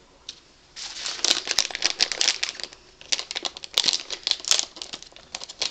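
A plastic blind-bag pouch crinkling as it is handled and pulled open by hand. The crackle starts about a second in and has a brief lull about three seconds in.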